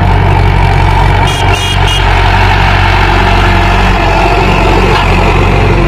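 Mahindra 415 DI tractor's four-cylinder diesel engine running steadily under load while pulling a spring-tine cultivator through the soil. Three short high chirps sound briefly about a second and a half in.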